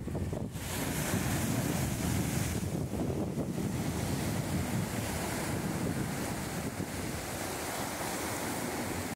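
Sea waves washing against the rocks at the foot of a seawall, with wind buffeting the microphone in a steady low rumble.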